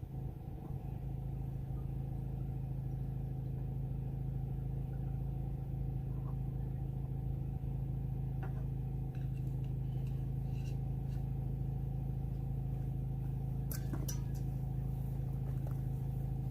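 An engine idling at a steady pitch, with a few sharp clicks and knocks around halfway through and near the end.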